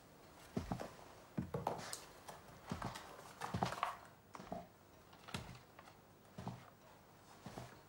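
Slow footsteps, a step roughly every half second to a second.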